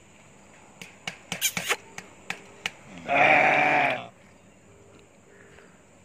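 A leopard gives one loud call lasting about a second, around halfway in, with a few sharp clicks before it.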